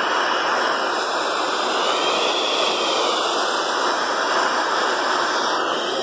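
Untuned FM radio static from a clock radio's built-in speaker: a steady hiss, with the radio set to 87.5 MHz and no station coming in.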